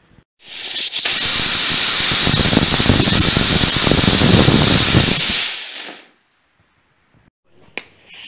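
38 mm solid-propellant rocket motor firing on a static test stand: a loud steady hissing rush of exhaust that starts about half a second in, holds for about five seconds and then tails away. A few sharp pops near the end.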